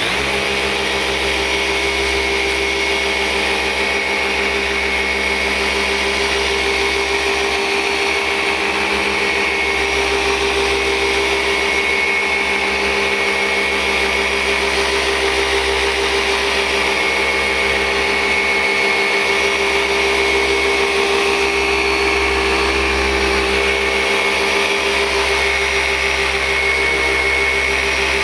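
Flex 3401 VRG dual-action polisher running steadily, its motor giving a hum with a high whine above it, as a white foam pad works fine machine polish into the clear coat. This is the finishing polish step after scratch removal.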